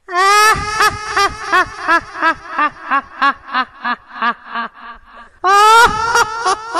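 High-pitched comedy laugh sound effect: a run of ha-ha pulses about three a second that tails off over about five seconds, then a second burst of laughter starting near the end.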